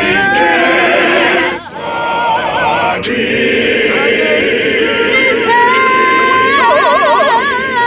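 Men's choir singing a praise-and-worship song a cappella, several voices in harmony on long held notes with wide vibrato. There is a brief dip for a breath about a second and a half in.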